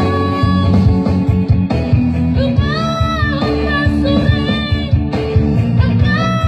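A child singing a melody with held, bending notes over a full band accompaniment that includes guitar.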